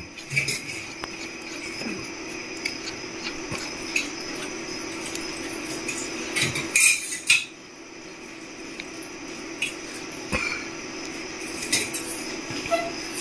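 Small metallic clicks and clinks as a black knob is turned and screwed back into its seat on top of a Sunstar buttonhole machine head, over a steady background hum. There is a brief louder scrape about seven seconds in.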